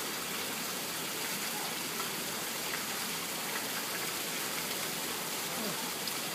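Steady rush of water from a small cascade pouring into the otter pool.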